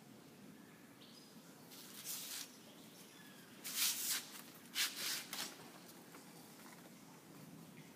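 Three short bursts of rustling, about two, four and five seconds in, from plant leaves brushing against the handheld camera. Under them runs a steady low hum of background noise.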